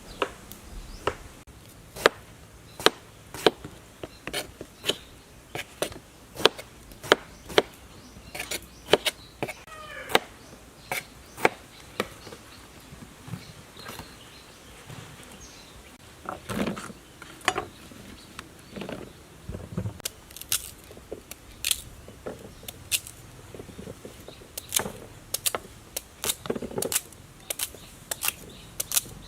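Knife chopping on a wooden cutting board in a run of sharp strokes, about one every two-thirds of a second at first, then more irregular with some duller knocks in the second half.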